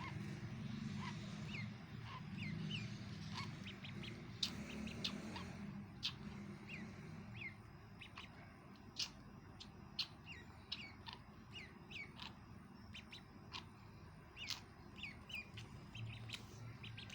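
Duckling peeping: repeated short peeps, each sliding down in pitch, about one or two a second, with a few sharp clicks among them.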